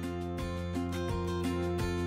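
Background music: a string of plucked notes over a steady low bass.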